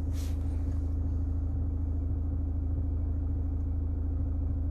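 Steady low hum and rumble inside a 2014 Mazda CX-5's cabin, with a brief soft hiss at the very start. No audio comes from the Android head unit's speakers; the owner blames a faulty CAN bus adapter.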